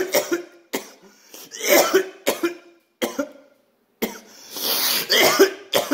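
A man coughing in several fits after inhaling smoke from cannabis shatter in a pipe: short, loud coughs come in quick runs, some drawn out, with brief silences between the fits.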